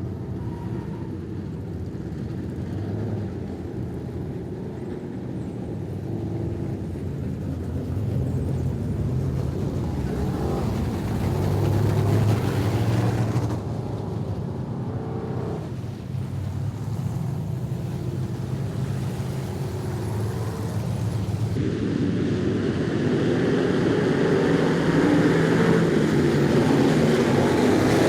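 Street stock race cars' V8 engines running on a dirt oval, the sound swelling and fading as the cars come and go, louder again near the end.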